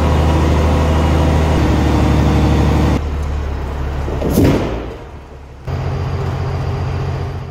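Semi truck's diesel engine running steadily while the end-dump trailer's box is raised on its hydraulic hoist. The sound changes abruptly about three seconds in, with a short rising-and-falling whoosh just after four seconds, dips, then the steady engine returns near the end.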